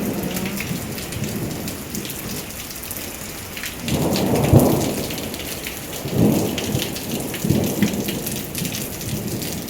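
Hurricane rain and wind: a steady hiss of heavy rain with fine pattering, and low rumbling gusts swelling up about four, six and seven and a half seconds in.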